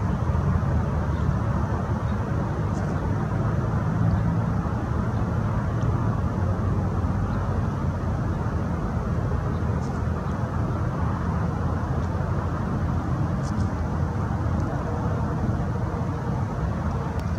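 Steady low rumbling background noise with a few faint, short high ticks.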